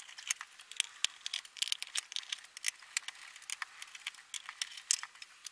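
Quick, irregular small metallic clicks and ticks of a Phillips screwdriver undoing the screws in the metal bottom cover of a Sony CDP-C325 CD player.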